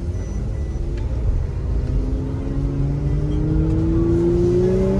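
Mercedes-AMG C43's engine and exhaust pulling away gently, the note climbing slowly in pitch and growing louder, heard from inside the cabin.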